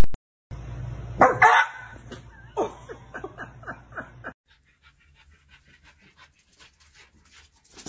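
A dog barking: one louder bark about a second and a half in, then a quick run of short barks, about four a second, that stops a little past the middle, leaving only faint clicks.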